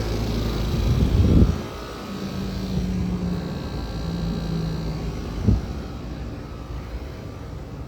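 Outdoor air-conditioning condenser units running: a steady mechanical hum with a low drone, loud for the first second and a half, then dropping off abruptly to a quieter hum with faint steady tones. A short knock comes about five and a half seconds in.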